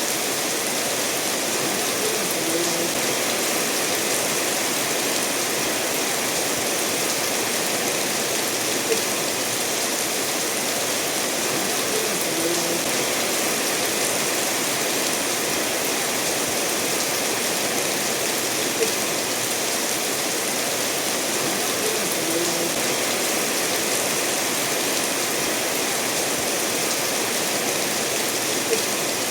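Steady rain falling together with a stream running over stones, making an even hiss. A brief, slightly louder tick comes about every ten seconds.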